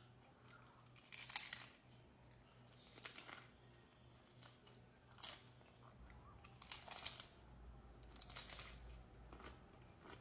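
Crunching bites and chewing of a hard taco shell, close to the microphone: about five sharp crunches a second or two apart, with softer chewing between them.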